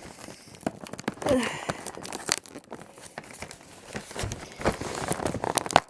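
Cardboard door of an advent calendar being picked and torn open, irregular crinkling, tearing and tapping.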